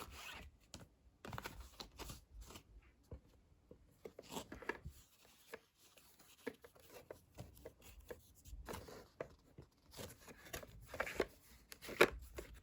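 Cards and cardboard-and-plastic packaging being handled by hand: faint, intermittent rustling and scraping with small clicks.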